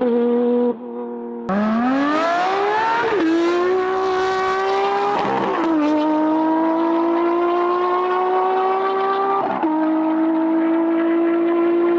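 Porsche 992 GT3 RS naturally aspirated 4.0-litre flat-six, breathing through a Valvetronic Designs aftermarket exhaust, accelerating hard. It revs up steeply, with quick upshifts about a second and a half in, at about three seconds, near six seconds and near nine and a half seconds, each followed by a new climb in pitch. Before that there is a short, quieter stretch at lower revs.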